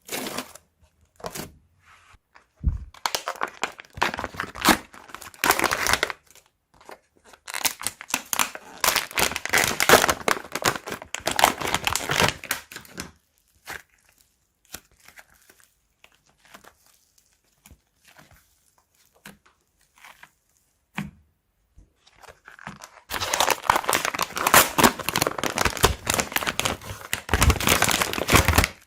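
Crunchy slime being squeezed and pressed by hand, giving a dense crackling with many small pops. It comes in three long spells with near-quiet pauses between them.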